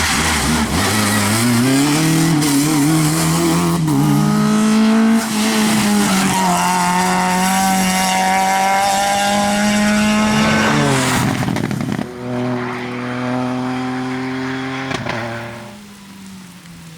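Rally car engines at full throttle. One climbs in pitch and holds high revs for several seconds, then sweeps past about two-thirds of the way in. A lower, steady engine note follows and fades away near the end.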